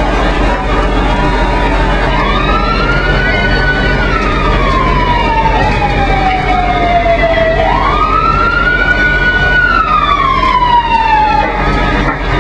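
Emergency vehicle siren wailing through two slow cycles, each rising quickly and then falling slowly over several seconds, over steady engine rumble and fireground noise.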